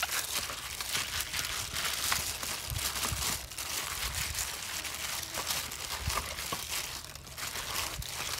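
A plastic bag worn over the hand crinkling and rustling as it rubs chili marinade into raw chicken pieces on a metal tray, a dense run of small crackles.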